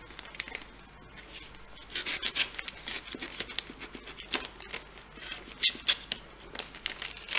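A small cutting blade scraping and slicing through clear packing tape and brown wrapping paper on a parcel, with the paper and tape crinkling. Irregular scratchy strokes, with a cluster about two seconds in and a few sharper ones later.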